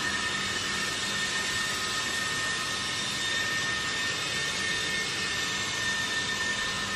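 Automatic plastic vacuum forming machine running: a steady hiss with a constant high whine and a faint low hum, unchanging throughout.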